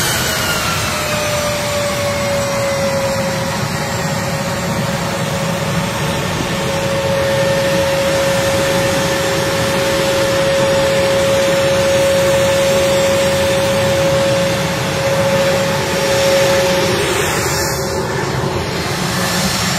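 A-10 Thunderbolt II's twin General Electric TF34 turbofan engines running on the ground as the jet taxis: a steady, loud whine over a broad rush of jet noise. A higher tone glides down in pitch in the first couple of seconds.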